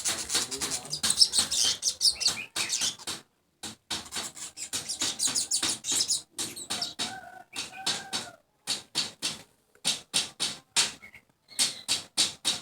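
Asian golden weaver (manyar emas) chattering loudly: runs of rapid, dry, rattling notes broken by short pauses.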